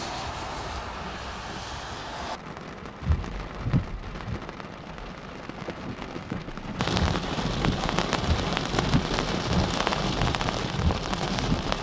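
Rain falling in a thunderstorm, with drops striking close to the microphone as sharp ticks; a couple of low thumps come about three seconds in, and the rain gets louder and denser from about seven seconds in.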